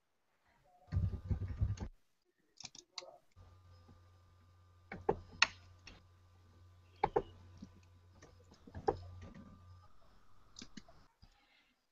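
Sparse, irregular clicks of computer keys being typed, picked up faintly over a video call, with a faint low hum through the middle and a short muffled thump about a second in.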